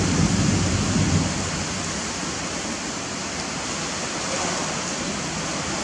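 Heavy rain pouring down, a steady hiss. A low rumble of thunder dies away in the first second or so.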